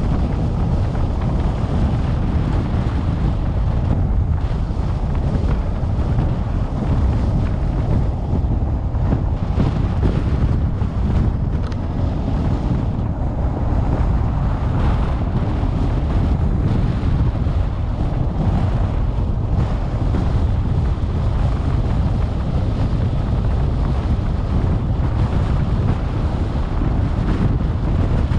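Wind buffeting the microphone of a moving car, a steady low rumble mixed with road noise.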